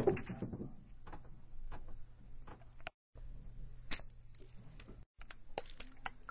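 A string of sharp clicks and taps: a loud click with a brief low thud at the start, lighter irregular ticks after it, and another loud click about four seconds in. The sound cuts out abruptly twice, around three and five seconds in.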